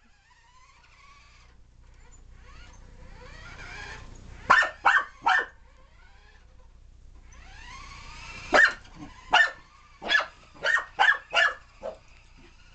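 Corgi puppy barking sharply at a remote-control car: three quick barks about four and a half seconds in, then a run of about seven more from about eight and a half seconds on.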